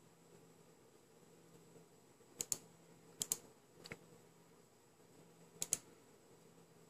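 A few faint keystrokes on a Corsair K70 RGB mechanical keyboard with Cherry MX Red switches and rubber dampeners under the keycaps. There are four presses, most heard as a quick pair of clicks.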